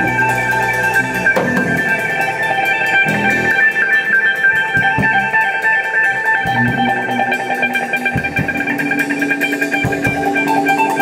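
Instrumental improvised jam by a small band: guitar notes over sustained, rapidly flickering high tones, with changing low bass notes and scattered percussion hits.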